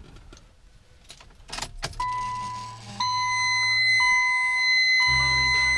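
A few clicks and knocks, then a Subaru Legacy's warning chime beeping about once a second. A second, steady high electronic tone joins it about a second later, over a low hum.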